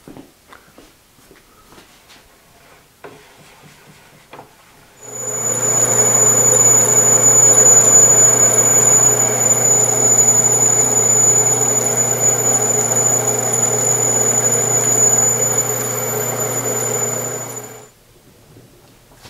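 1917 Avey drill press switched on about five seconds in. It runs steadily under its motor with a low hum and a thin, high whine, then stops after about thirteen seconds.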